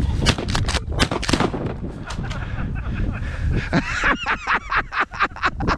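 A quick cluster of sharp knocks in the first second and a half, then a run of repeated honking bird calls over the last two seconds, with wind buffeting the microphone throughout.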